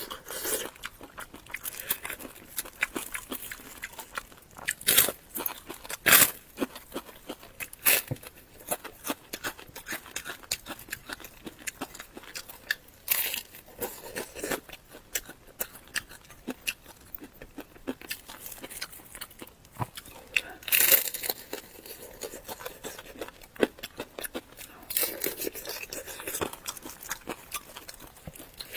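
Close-miked eating: irregular crunchy bites and chewing, with several sharp, loud crunches and a few longer rustly patches of chewing.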